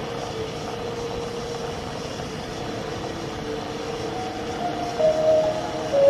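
Background film score of sustained, slowly shifting held notes, swelling louder about five seconds in.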